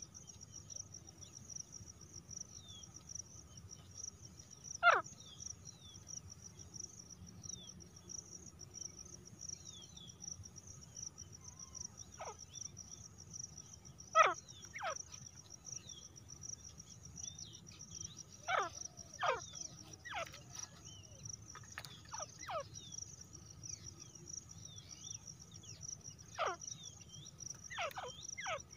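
Caged female grey francolins giving short, sharp calls that drop steeply in pitch, singly or in quick pairs every few seconds, the loudest about 5 and 14 seconds in. A steady high insect chorus runs underneath.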